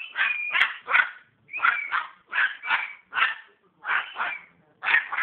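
A rapid series of short, high barks, about two a second, repeated without a pause.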